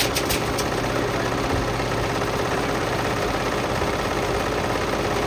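Whirlpool washing machine running with heavy bricks in its drum: a steady mechanical rumble and rattle, with a few quick knocks right at the start.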